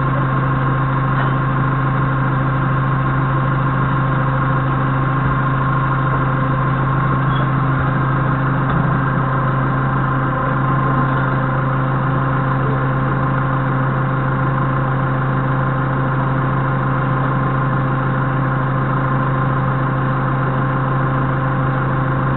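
Doosan 4.5-ton forklift engine idling steadily, a constant low hum that does not change throughout.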